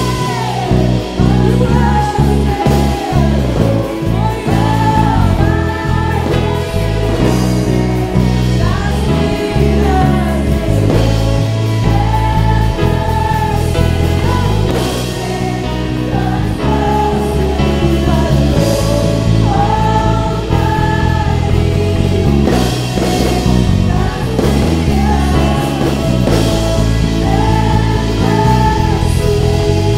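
Live Christian worship song: several women singing into microphones over a band with electric guitar and drums.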